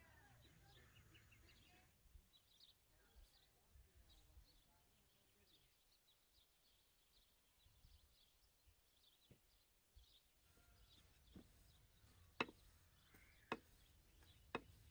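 Quiet outdoor background with faint, scattered bird chirps. After about ten seconds a few sharp knocks come roughly a second apart and are the loudest sounds.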